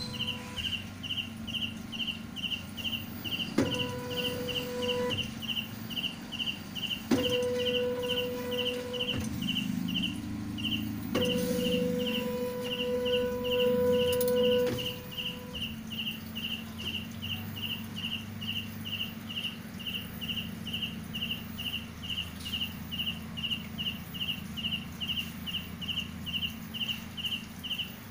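Stepper motors driving a vending-machine gantry whine at a steady pitch in three separate moves, each starting with a click, the longest in the middle; the motors are still after about halfway. A short high chirp repeats evenly about twice a second throughout.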